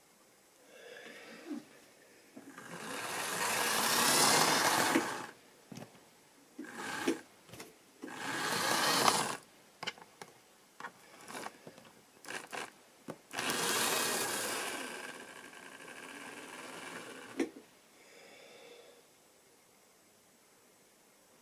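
Model railway locomotive's small electric motor whirring as it runs along the track, in three spells of a few seconds each, with sharp clicks of wheels and handling between them.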